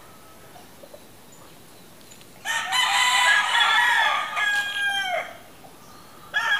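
Roosters crowing: after a quiet start, a long crow with another overlapping it comes in about two and a half seconds in and ends on a falling note a little after five seconds, and a new crow starts near the end.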